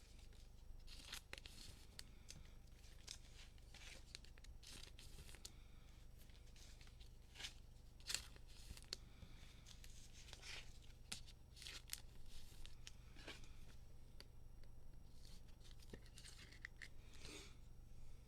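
Faint rustling, scraping and tearing of trading cards and their cellophane pack wrappers being handled and opened, with a sharper click about eight seconds in.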